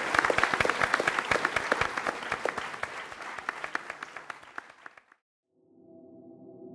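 Audience applauding. The clapping thins and fades, then cuts off suddenly about five seconds in. Near the end a soft, steady ringing musical tone fades in.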